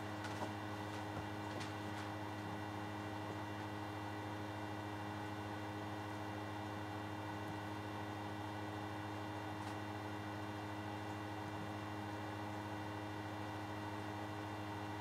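Steady electrical mains hum: a low drone with a stack of fainter steady tones above it. A few faint ticks come near the start and one about ten seconds in.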